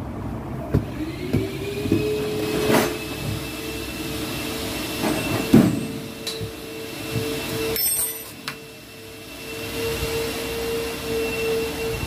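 A machine's motor spins up about a second and a half in and runs on with a steady hum and a thin whine above it, with a few knocks and handling clunks along the way.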